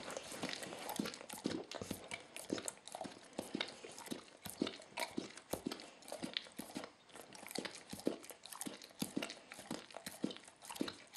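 A dog licking its chops over and over after eating a steak: wet tongue smacks and mouth clicks, irregular, about two or three a second.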